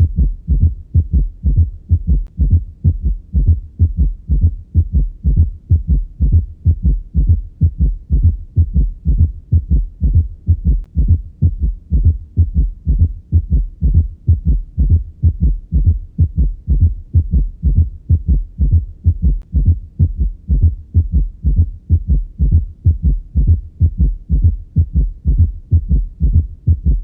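Heart sounds heard through a stethoscope: a regular run of low, dull beats, each cycle carrying a third and a fourth heart sound besides the normal first and second sounds. This is a quadruple gallop rhythm, a ventricular (S3) and an atrial (S4) gallop in the same heart.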